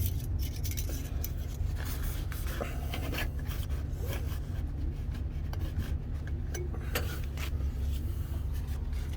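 Dipstick being handled and wiped with paper towels: rubbing, scraping and light clicks, over the steady low hum of the Prochem Legend truckmount's Kohler engine running.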